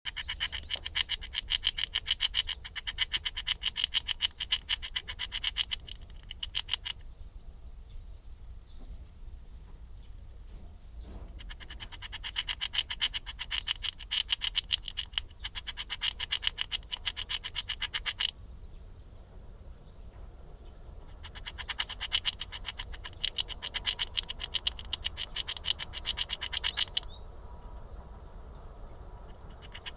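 Eurasian red squirrel gnawing with its incisors at a hazelnut of an especially thick-shelled variety: rapid scraping clicks of teeth on shell. They come in three bouts of about five to seven seconds, with short pauses between.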